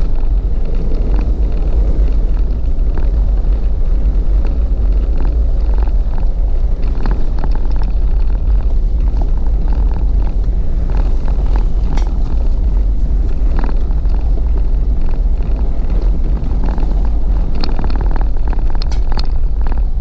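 Vehicle driving on a rough back-country road: a steady, heavy low rumble with scattered clicks and knocks.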